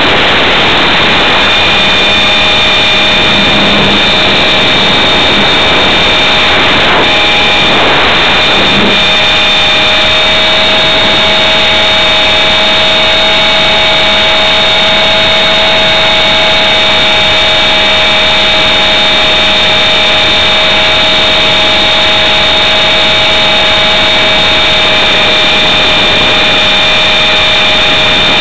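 Electric motor and main rotor of a Blade 400 RC helicopter, heard through its own onboard camera: a steady high whine of several tones over a loud rushing noise, running at constant speed throughout.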